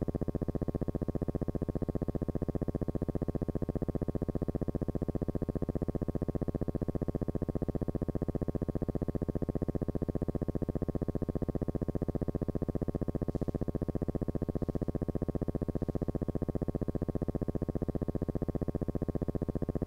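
Steady, low electrical buzz with many overtones, pulsing rapidly and evenly without change.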